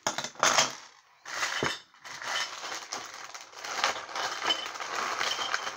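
Small clear zip-lock plastic bag of Lego pieces being handled and pulled open, crinkling and clicking. It comes in a few short bursts over the first two seconds, then runs on more steadily.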